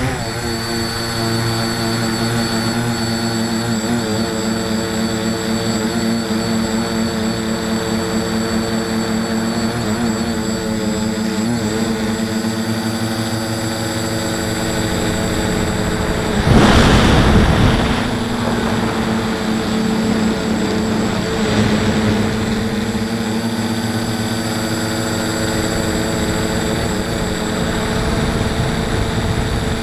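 Tricopter's three electric motors and propellers whining steadily, heard from the camera on board, the pitch wavering a little with throttle. A brief louder rush of air over the microphone a little past halfway.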